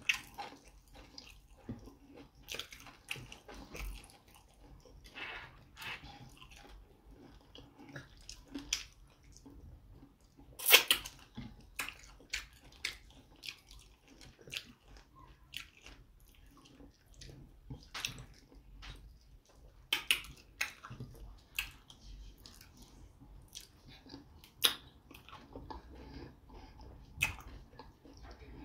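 Close-up eating sounds: wet chewing, lip smacks and squelches of fufu being eaten with slimy ogbono soup, coming as scattered short clicks, with one louder smack about eleven seconds in.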